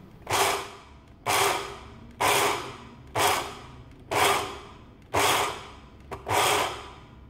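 Electric mixer-grinder pulsed seven times, about once a second. Each pulse is a short whirr of the motor and blades chopping roasted peanuts and spices, coarse-grinding them into dry peanut chutney.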